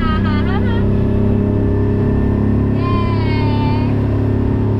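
Speedboat engine running steadily at a constant pitch, with a person's voice calling out briefly twice, at the start and about three seconds in.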